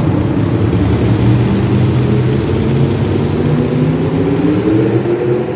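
Pickup truck's engine running loud at the start of a truck pull, hooked to a weight-transfer sled. It holds steady, then climbs steadily in pitch from about halfway through as it revs up under load.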